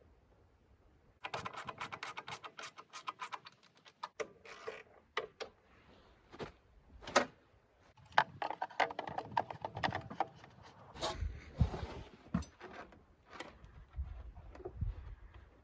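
Irregular clicking, tapping and rattling of hand tools and small parts being handled during engine work, with a dense run of rapid clicks a second or so in.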